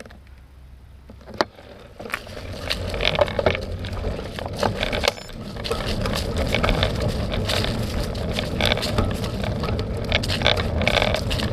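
A bicycle riding over a dirt trail: the tyres crunch and rumble over the ground, with rattling and crackling clicks. It is fairly quiet at first, with one sharp click, then the riding noise rises about two seconds in and keeps going.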